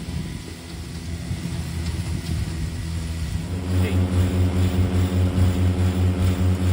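Remote-controlled lawn mower running steadily. About three and a half seconds in it gets louder and settles into a steady hum with a slight regular pulsing.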